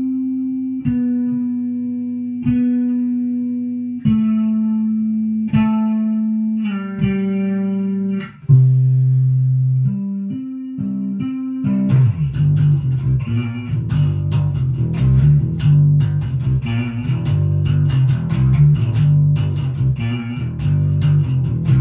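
Electric bass played through a 1970s Fender Bassman 10 amp. The bass is a Fenderbird-style build: a mahogany Thunderbird body and maple Fender neck with a Thunderbucker Thunderbird pickup, giving a gritty tone. For about twelve seconds it plays slow single notes that are each left to ring, then it switches to a faster, busier riff of quickly plucked notes.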